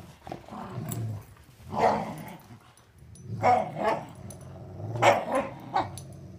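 Dogs growling as they tug on a rope toy in play: a steady low growl, broken by louder, sharper growls about two, three and a half and five seconds in.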